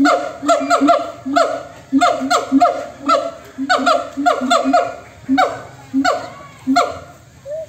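Siamang gibbons calling together in a loud chorus: a fast run of short falling barks over low booming notes, about four a second, the rhythm slowing near the end.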